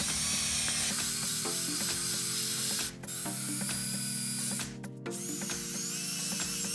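Cordless drill turning a tap to cut threads into a hole in a metal mill column. The motor runs steadily and stops briefly twice, about three seconds in and again about five seconds in.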